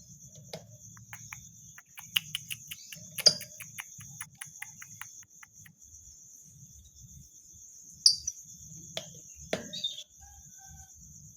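Lovebird chirping, the kind of recording used as a lure call to set other lovebirds singing: a rapid run of sharp, high chirps about two seconds in, a loud call soon after, and more loud calls from about eight seconds on, over a steady high-pitched buzz.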